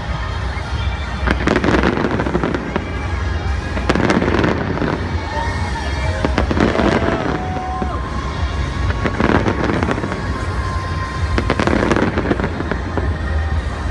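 Fireworks display: shells bursting in a string of sharp bangs every one to three seconds over a constant low rumble.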